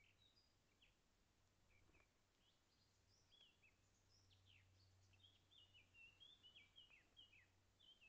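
Faint woodland birdsong: several birds giving short chirps, which become a quick run of repeated notes in the second half.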